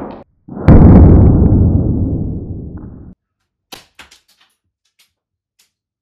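Shot from a homemade 3D-printed gun: a loud sudden blast about half a second in that dies away over some two and a half seconds and then cuts off abruptly. A few faint clicks follow.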